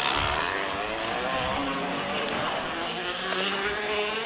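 Plastic bottle flapping against a bicycle's spokes, making a motorbike-like buzz that climbs slowly in pitch in the second half as the bike picks up speed.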